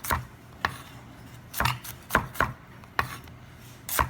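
A knife chopping sweet onions on a cutting board: a series of sharp knocks at an uneven pace, some coming in quick pairs.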